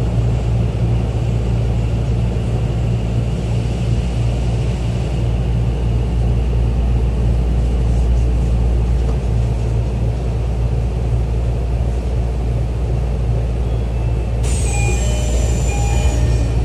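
Tokyo Metro 10000 series subway train heard from inside the car, a steady low running rumble as it slows along the station platform. Near the end, as the train comes to a stop, a sudden hiss starts with a high, slightly falling whine.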